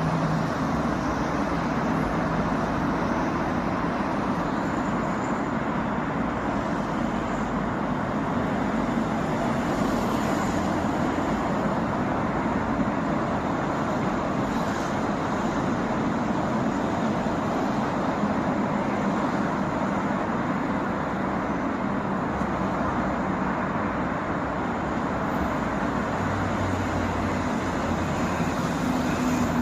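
Steady, dense traffic on an urban motorway: cars passing continuously, a constant wash of tyre and engine noise with no let-up. A deeper engine hum, from a heavier vehicle, joins near the end.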